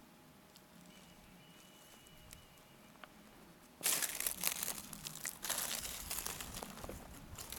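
Close rustling and crunching of dry grass and brush underfoot as someone walks through a dry field. It starts suddenly about four seconds in and carries on in irregular crackles.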